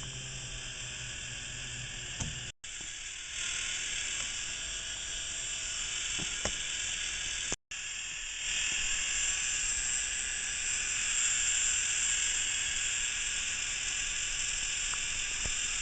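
K'NEX Sawblade Thrill Ride model running on its small electric motor, the plastic gears and drive chain making a steady whir with a few light clicks. The sound cuts out briefly twice and comes back a little louder each time.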